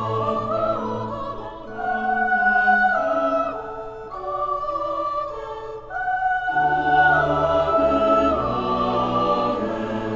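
Choir singing slow, held chords in classical style, swelling louder about two seconds in and again about six seconds in.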